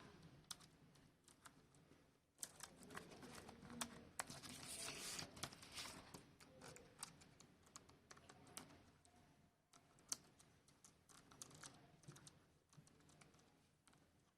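Faint, scattered small plastic clicks and light scraping as a laptop key's scissor-mechanism clips are worked and locked into place.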